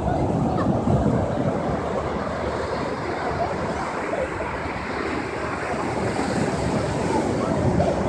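Sea surf breaking and washing up onto a sandy beach, a continuous steady wash of waves.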